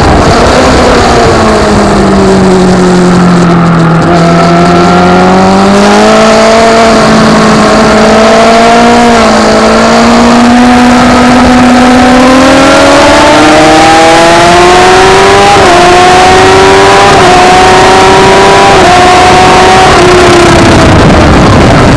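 Kawasaki ZX-10R's inline-four engine at race pace. Its pitch falls for the first few seconds as the bike brakes into a corner. It then climbs steadily under hard acceleration, with short dips in pitch at each upshift, and drops again near the end under braking.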